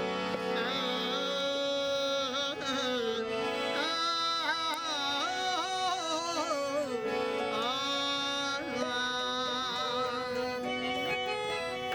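Rajasthani Manganiyar folk music, the opening of a devotional song: a melodic line with sliding, wavering ornaments over a steady drone.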